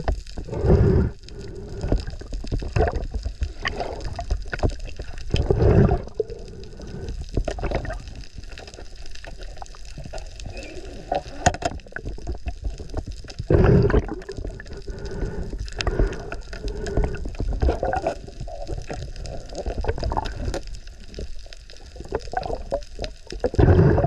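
Water sloshing and gurgling around a camera at and under the sea surface during a spearfishing dive, with louder surges of water noise every few seconds.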